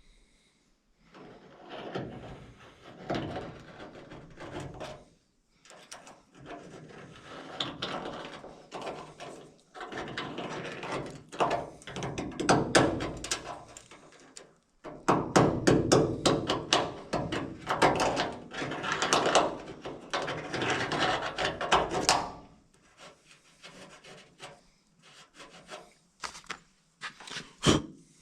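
Repeated bursts of harsh rasping and scraping, each a second or more long with short pauses between, busiest in the second half: tool work cutting into the tailgate's metal to open up a hole for a wiring grommet.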